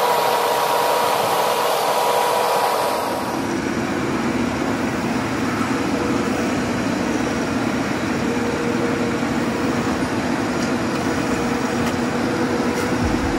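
Nissan Sentra's engine running, a loud steady whir whose sound changes about three seconds in and then holds steady.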